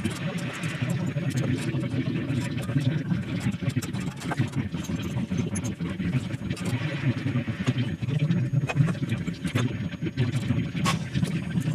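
Sped-up sound of copper pipework being fitted, heard under a time lapse: a steady low drone run together with a rapid jumble of clicks and knocks from tools and fittings.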